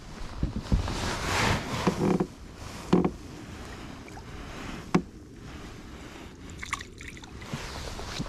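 Jacket and clothing rustling close to the microphone as the wearer shifts about, with two sharp knocks about three and five seconds in.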